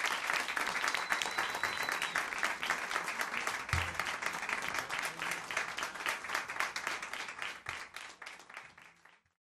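Small audience applauding after a live song, the clapping fading out near the end.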